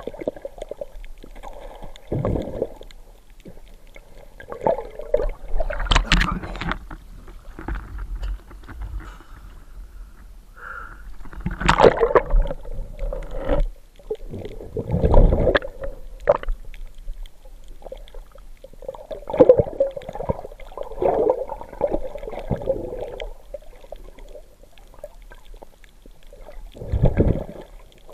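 Muffled underwater water noise: irregular sloshing and gurgling swells with occasional sudden knocks, as a diver's gloved hand moves over the seagrass bed to pick up sea cucumbers.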